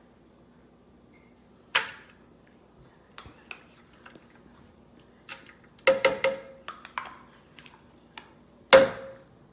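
A small spoon knocking and scraping against a yogurt container while scooping out thick yogurt: scattered sharp knocks, some with a short ring, the loudest about two seconds in and near the end, with a quick run of them in between.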